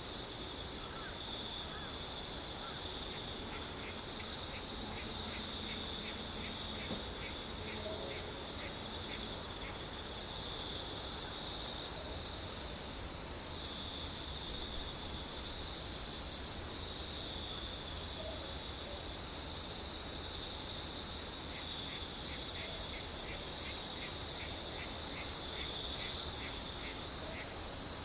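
Evening chorus of insects: a steady, high-pitched trill runs throughout and grows louder about twelve seconds in. Another insect chirps in a regular series of short pulses, about two or three a second, in two stretches: one early and one near the end.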